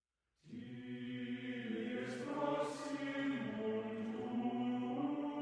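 Background vocal music: after a moment of silence, long held chant-like sung notes start about half a second in and carry on.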